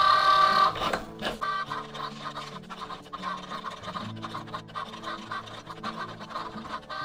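Cricut Joy cutting machine cutting a vinyl label: its small motors whirring in short spurts that keep changing pitch as the blade carriage and mat move back and forth, with quick clicks and stops between moves.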